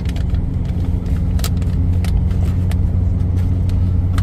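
Steady low rumble inside a Chevrolet pickup's cab with the engine running, and a few short crinkles of a plastic snack bag being opened and handled, the loudest about a second and a half in.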